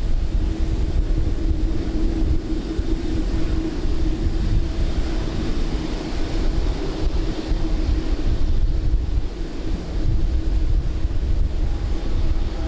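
Steady airport apron noise: a constant droning hum over a heavy low rumble, with no distinct events.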